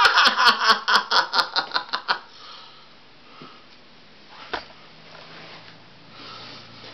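Laughter: a run of quick breathy pulses that fades out after about two seconds, followed by a quiet room with one soft knock about four and a half seconds in.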